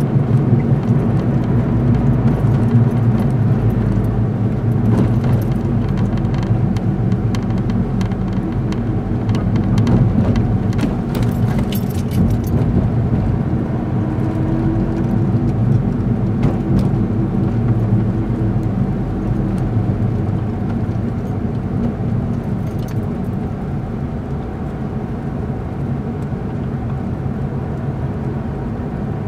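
Car interior noise while driving: a steady low engine drone with road rumble, easing off a little in the last third.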